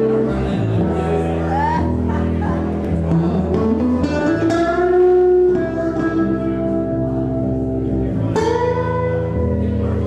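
Live band playing an instrumental passage over sustained low notes, with a guitar holding long notes that slide upward in pitch.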